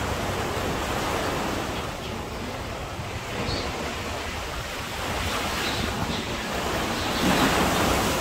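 Sea surf breaking and washing up a beach, a steady rush with a louder wave swelling near the end. Wind rumbles on the microphone.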